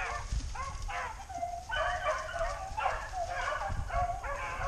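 Hunting dogs baying on a rabbit chase: repeated drawn-out calls that overlap, as from several dogs, growing denser after about a second and a half.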